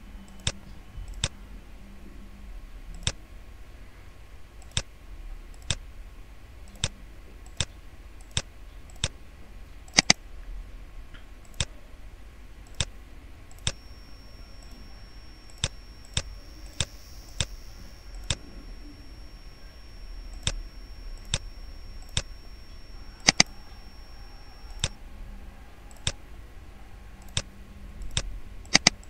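Computer mouse buttons clicking, single clicks about a second apart at uneven spacing, with a few quick double clicks.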